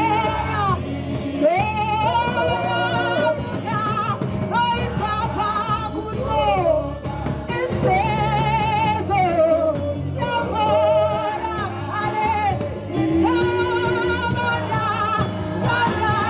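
A Shona gospel hymn sung live by a worship band. Sustained vocal lines with vibrato ride over a choir of backing singers, with bass and a drum kit keeping time.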